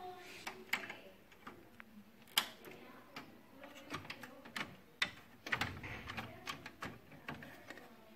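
Irregular clicks and light knocks of plastic and metal parts being handled while working on an HP LaserJet P3005 printer, with a brief low rumble a little past halfway.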